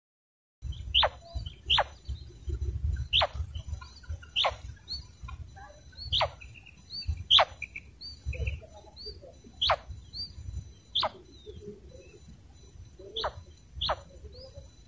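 Female common quail (batair) calling: a sharp call that falls steeply in pitch, repeated about ten times at uneven intervals of roughly one to two seconds, with faint short chirps between calls. Wind rumbles on the microphone.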